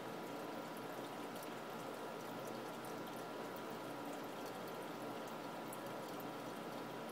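Aquarium filter and air bubbles running: a steady bubbling, trickling water noise with light crackles throughout.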